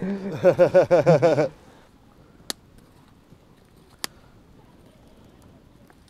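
Wood campfire burning low, giving two sharp pops about a second and a half apart over a faint steady background. A man's voice is heard for the first second and a half.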